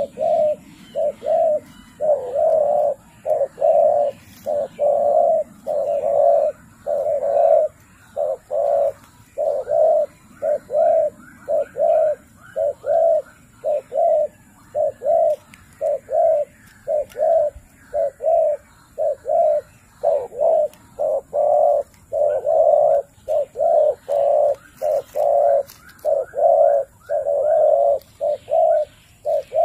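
Dove cooing over and over: short, low, evenly spaced notes, about two a second, in long runs with brief gaps between them, and fainter higher notes at times.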